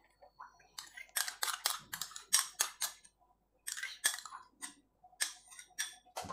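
Small metal spoon scraping and tapping against a glass bowl, scooping thick gel out of it: a quick run of short scrapes and clicks, a brief pause about three seconds in, then more.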